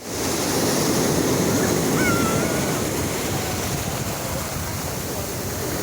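Sea surf washing steadily onto the shore, a continuous rushing noise, with a faint brief high gliding call about two seconds in.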